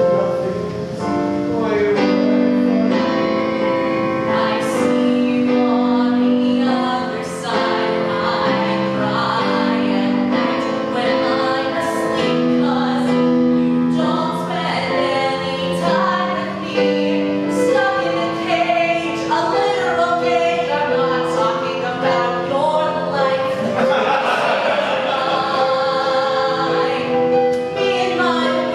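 A woman singing, with keyboard accompaniment playing sustained chords underneath.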